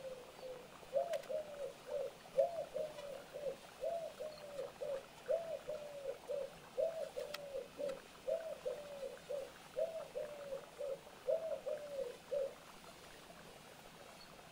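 A dove cooing: a low three-note phrase repeated steadily about eight times.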